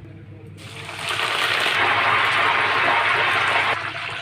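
Spinach pakoras frying in hot oil, sizzling. The sizzle swells about a second in and eases a little near the end, over a steady low hum.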